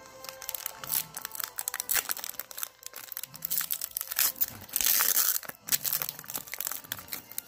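Foil booster-pack wrapper crinkling in the hands, then ripped open across the top in one long tear about five seconds in, and crinkled again as it is pulled apart.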